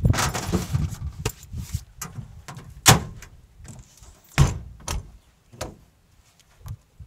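Luggage shoved into the back of a Toyota Hilux pickup with a shuffle and small knocks, then the tailgate slams shut about three seconds in. The canopy's rear hatch bangs shut about a second and a half later, followed by a few lighter knocks as it is pressed closed and latched.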